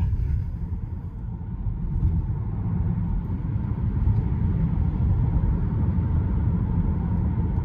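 Tesla Model 3 Performance electric car driving: steady low road and tyre rumble with no engine note. It eases slightly about a second in, then holds steady.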